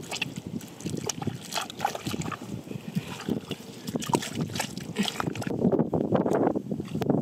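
Wet mud squelching and slapping as it is packed by hand, with splashes as clumps drop into shallow muddy water. Near the end, a steadier rush of water running out of a flexible plastic pipe joins in.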